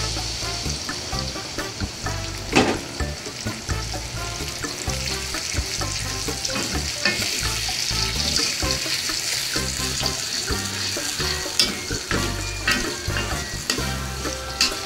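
Ground chili paste sizzling in hot oil with chopped shallots and garlic in a wok, being fried until the oil separates. A spatula stirs and scrapes through it, with occasional sharp knocks against the pan, the loudest about two and a half seconds in.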